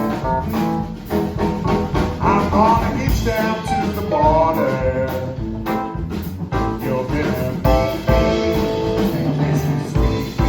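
Blues-rock band playing live, with guitar and a melodic lead line that bends up and down in pitch.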